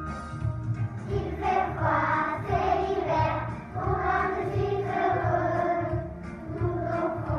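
Children's choir singing together over a backing track with a steady beat; the voices come in about a second in.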